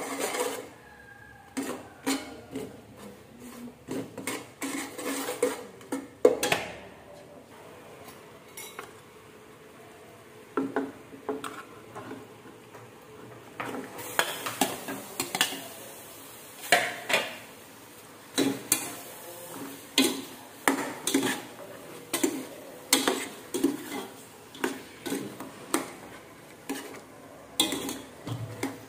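A metal spoon stirring and scraping in an aluminium saucepan, with many short knocks against the pot. About halfway through, raw pork and offal are added to the hot dark sauce and a steady sizzle rises under the continued knocking of the spoon.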